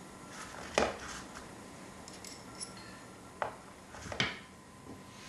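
Small steel transfer punches clinking against metal as they are picked out and tried in a hole for size: a few sharp metal clicks, the loudest about a second in and about four seconds in, with light tinkles between.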